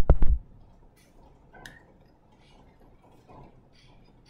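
A few short low knocks right at the start, then faint, scattered taps and scratches of a stylus writing on a tablet.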